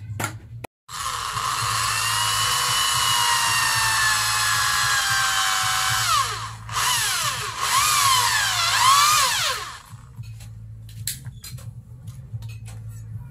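Corded electric drill boring into the end of a green bamboo pole, the motor whining with its pitch sagging as the bit bites. It stops briefly around six seconds, then drills again with the pitch dipping and rising, and stops near ten seconds. Light taps and clicks follow.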